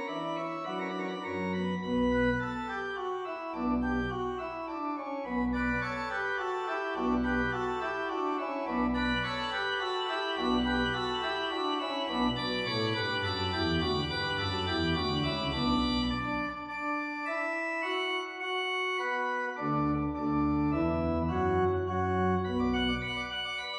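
Organ music: full chords over a bass note repeating about every one and a half to two seconds, held longer in the middle, with a short pause about three quarters of the way through.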